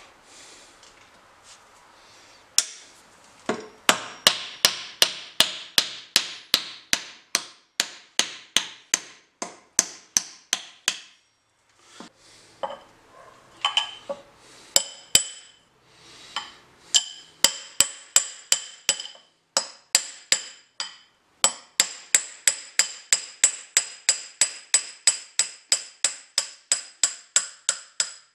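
Ball-peen hammer striking a steel drift, a cut-off piece of 19 mm Allen wrench, set in the eye of an axe head: sharp metal-on-metal blows, about two to three a second, each with a ringing note, stopping briefly twice. The blows are driving the old wedge and handle wood out of the axe head's eye.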